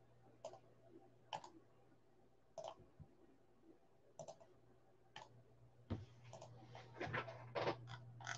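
Scattered sharp clicks at a computer desk, then a quicker run of clicks and light knocks near the end, over a low steady electrical hum.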